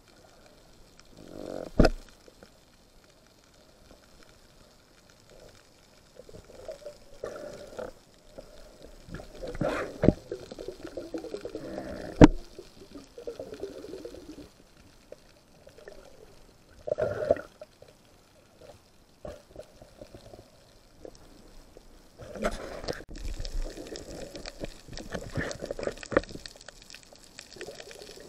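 Underwater water noise around a camera: irregular gurgling and sloshing, with a few sharp clicks.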